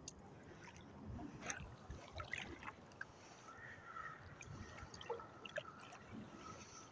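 Faint lapping and sloshing of shallow seawater around a wading angler, with a few small clicks. A faint high whine comes in about three and a half seconds in and fades out near the end.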